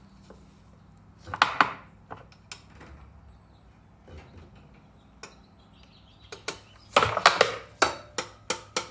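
Metal hand tools and engine parts clicking and tapping during valve work on a Honda GCV160 engine. A few sharp clicks about a second and a half in, then a quick run of clicks and knocks, several a second, in the second half.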